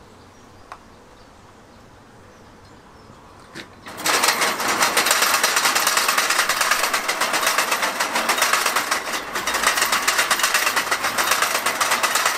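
Fast, steady metallic clicking and rattling from the homemade pneumatic potato Gatling gun's mechanism as it is worked by hand. It starts suddenly about four seconds in, after a quiet stretch with a couple of single clicks.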